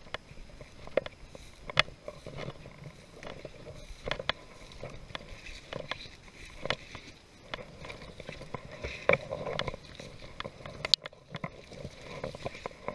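Footsteps swishing and crackling through dry tall grass and brush, with irregular snaps and scrapes as stems and twigs brush against clothing.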